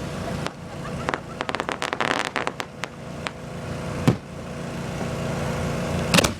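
Aerial fireworks going off: a rapid run of crackles between about one and three seconds in, a single loud bang about four seconds in, and two bangs in quick succession near the end, over a steady low hum.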